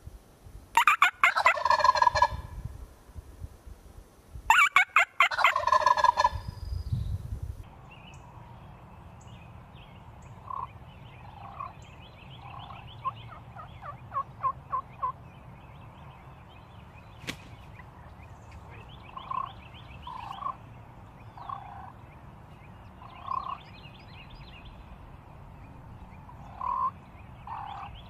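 Turkeys gobbling: two loud rattling gobbles in the first few seconds. After a change in the background, fainter gobbles and short calls repeat every second or so.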